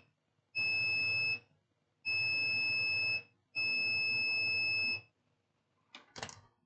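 Multimeter continuity buzzer beeping three times, each a steady high tone of about a second, as the probes are touched across the board: the beep shows the rail is still shorted. A few faint clicks follow near the end.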